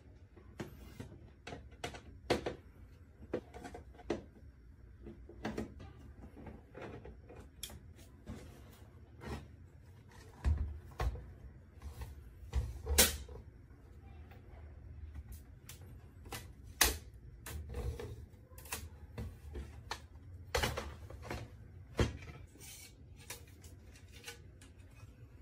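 Irregular clicks, taps and knocks from hands and tools handling the plastic and metal parts of an HP all-in-one PC during disassembly, with a few heavier thumps.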